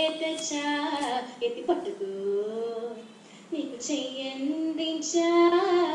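A young woman singing solo in sustained, gliding melodic phrases, with short breaks between phrases about two and three seconds in.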